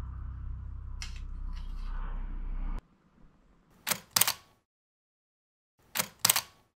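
Camera shutter clicks, two double clicks about two seconds apart, the loudest sounds here. Before them a steady low hum with a couple of light clinks of a ladle and fork on a plate, which cuts off suddenly.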